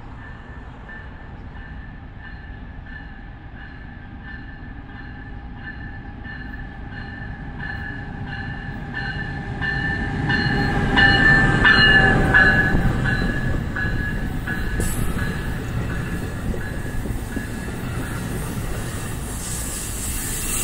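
A train approaching and passing, its rumble building to a peak a little past halfway and then easing off, with a high ringing tone that pulses about twice a second.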